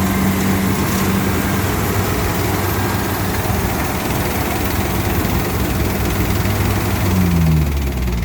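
Diesel engine of rice-harvesting machinery running steadily at working speed, its pitch dropping briefly near the end.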